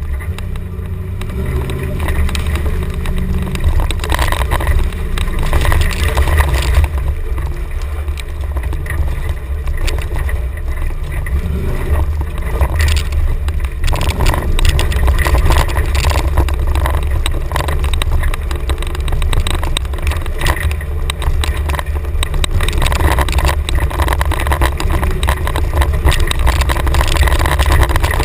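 1990 Chevrolet K5 Blazer driving off-road on dirt, its engine running with a steady low rumble. Short knocks and rattles come throughout as it goes over the ground.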